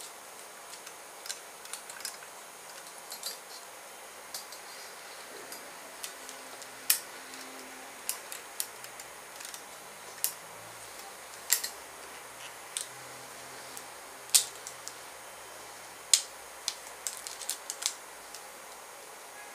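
A roller speargun being handled and rigged: irregular sharp clicks and light knocks of its parts, with a few louder ones and a quick run of clicks near the end.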